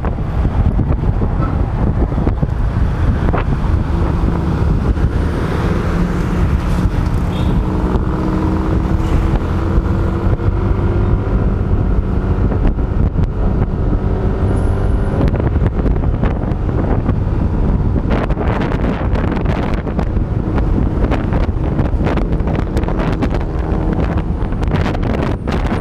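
A motorcycle riding through traffic: wind rushing over the microphone on top of a low engine and road hum. The engine note shifts slightly in pitch through the middle stretch, and the wind buffets harder in the second half.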